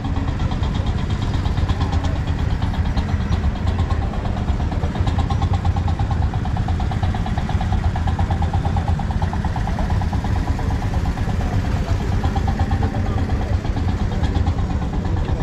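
Vintage tractor engine idling steadily close by, with an even, rapid beat.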